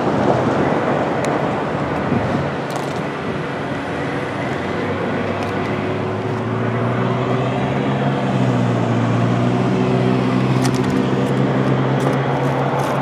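Road traffic passing on the street beside the crossing. From about halfway in, a motor vehicle's engine hum rises and holds steady over the noise, with a few light clicks near the end.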